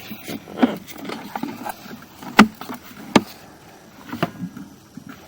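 Sewer inspection camera and its push cable being handled and fed into the line: scattered rustles and clicks, with two sharp knocks about two and a half and three seconds in.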